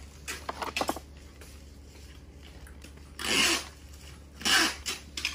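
Plastic blister packaging and cardboard product boxes rustling and scraping against each other as a packaged tape measure is pulled out of a bin. There are a few light clicks in the first second, then two louder scrapes past the middle.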